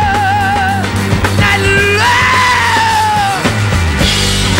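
Hard rock trio playing live: a wordless vocal wail held with a wavering vibrato breaks off about a second in, and a second long note starts about two seconds in and slowly sags in pitch, all over a steady bass line and drums.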